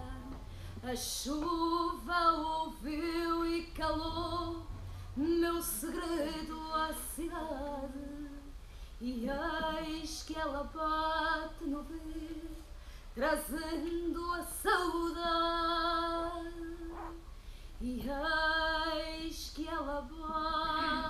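A woman singing solo and unaccompanied, holding long notes with vibrato, with short breaths between phrases.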